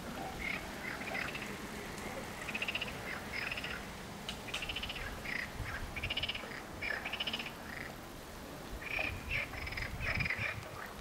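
Frogs calling from the creek: a run of short, rattling croaks, about one a second, with a brief lull past the middle.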